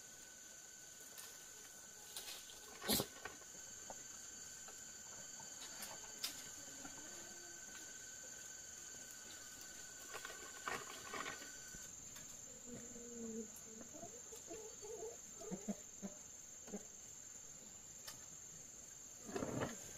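Insects calling in a steady high drone, with a second, lower insect tone that stops about twelve seconds in. A few sharp knocks and clicks cut in, the loudest about three seconds in, and faint short low calls come in the second half.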